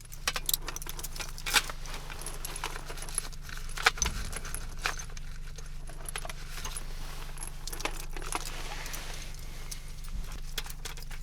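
Irregular metallic clicks and clinks of cartridges being handled and loaded, over a steady low generator hum. The listener takes it for a PKM machine gun being loaded with ammunition.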